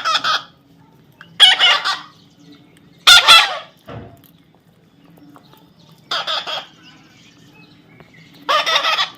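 Parrot giving five loud, harsh squawking calls, each about half a second long, with pauses of one to three seconds between them.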